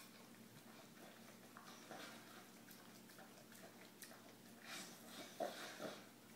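Faint clicks and scraping as a dog eats from a steel bowl while wearing a mesh muzzle, with the muzzle and teeth knocking against the bowl; a louder cluster of knocks comes about five seconds in.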